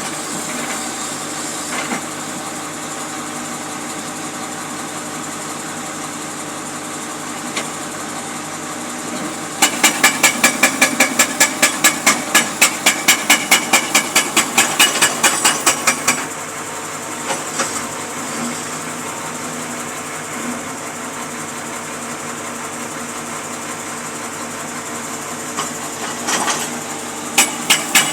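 Jackhammer pounding in rapid even blows, about five a second, breaking up old material, over the steady running of a machine's engine. The hammering lasts about six seconds midway and starts again near the end.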